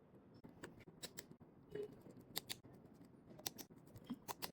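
Faint, irregular small clicks, about a dozen: a Torx screwdriver and tiny screws working on the metal protective cover over an iPhone 8 Plus's screen and earpiece cable connectors.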